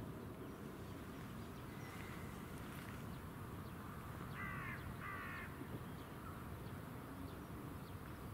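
A crow cawing twice, two short harsh calls about half a second apart, roughly four and five seconds in, over a faint steady background hiss.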